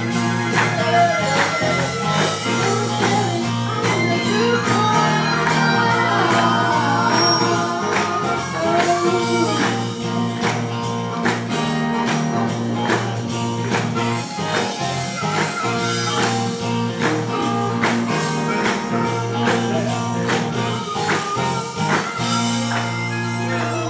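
Gospel vocal trio, a man and two women, singing in harmony through microphones and a PA over full accompaniment with a steady beat.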